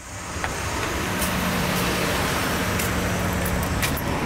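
Steady road traffic noise with a low hum, and a few faint clicks.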